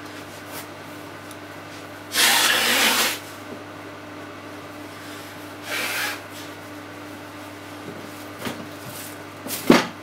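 Microwave oven running with a steady low hum. About two seconds in, a loud rush of noise lasts about a second, a shorter one follows around six seconds in, and there is a sharp knock near the end.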